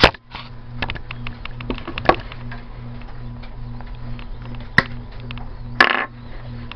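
Hands handling an electrical extension cord and tools on a wooden table: a sharp snap at the start, scattered clicks and knocks, and a short rustle near the end, over a steady low electrical hum.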